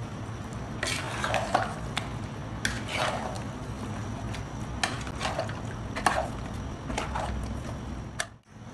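Metal spatula stirring and tossing raw marinated chicken pieces in a metal cooking pot: a series of irregular clinks and scrapes of the spatula against the pot, over a steady low hum.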